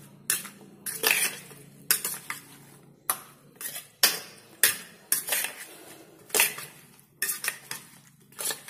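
Metal spoon scraping and clinking against a stainless steel bowl as egg-coated brinjal slices are tossed and mixed, in irregular strokes about once a second.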